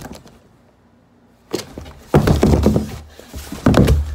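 Rapid thumps and scuffling against the wall of a cardboard box, in two loud bouts, one about two seconds in and one near the end.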